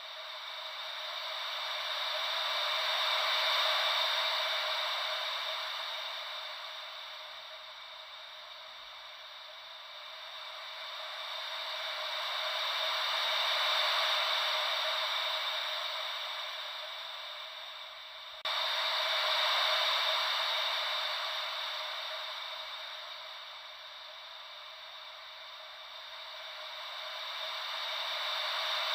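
Ocean-wave white noise: a hiss that swells and fades slowly, about every ten seconds, like waves washing in and out, with a sudden jump in level about eighteen seconds in.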